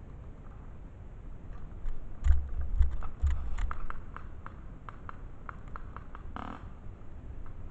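Dry twigs and leaf litter crackling and snapping underfoot as someone moves over a woodland floor, with heavy low bumps of the camera being jostled a couple of seconds in. A short rustle near the end.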